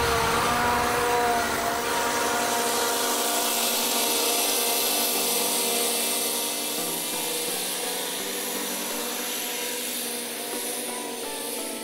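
Scag zero-turn riding mower's engine running steadily under mowing load, slowly fading as the mower drives away across the lawn.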